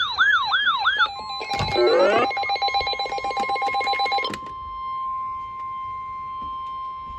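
Electronic alert tones: a warbling tone sweeping up and down about four times a second, then a busy jumble of beeping, chirping and rapid clicking tones that stops suddenly about four seconds in. Under it, from about a second in, a single steady tone holds on: the NOAA Weather Radio warning alarm tone that heads an Emergency Alert System warning.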